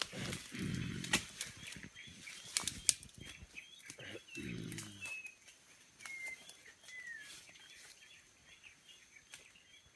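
Leaves and twigs rustling and snapping in dense undergrowth as a silverback mountain gorilla moves through it at close range. There are two low grunts about a second long, one just after the start and one about four seconds in, and birds chirping in the background.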